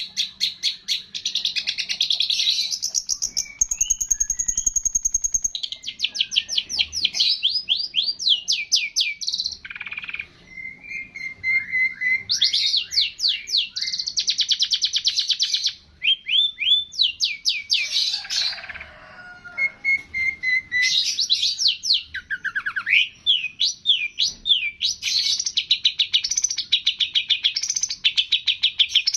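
Songbird song: fast, near-continuous runs of rapid chirps and trills, some sliding in pitch, with a few short breaks between phrases.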